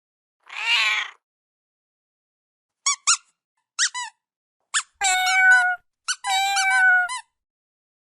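Cat meowing: first a short, rough call, then a string of brief, high squeaky mews, then two longer meows that drop slightly in pitch at the end.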